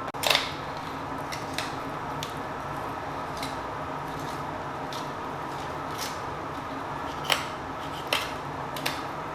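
Kitchen work: a series of sharp, separate clicks and snips of utensils, about nine spaced unevenly over a steady low hiss.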